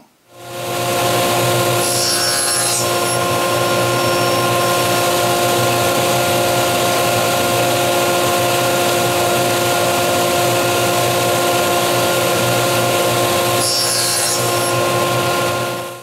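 Table saw running steadily while small wooden strips are cut: a constant whine of several steady tones over a broad rush of noise, with brief scratchier passages about two seconds in and again near the end.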